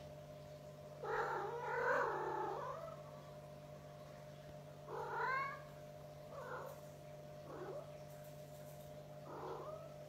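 Domestic cat meowing repeatedly, about five calls: a long, drawn-out meow about a second in, a loud short one about five seconds in, and shorter, fainter meows after. A steady low hum runs underneath.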